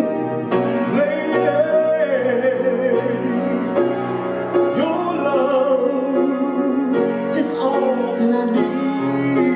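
Slow ballad music led by piano, with a long, wavering melody line held over sustained chords.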